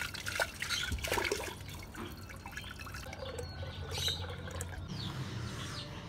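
Water from a tap running and splashing into a steel saucepan as it is filled.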